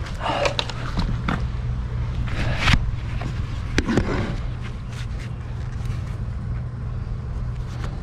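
Steady low rumble of wind on the microphone, with scattered rustles, scrapes and clicks from the camera being handled, a body settling into a plastic chair and a work glove being pulled off.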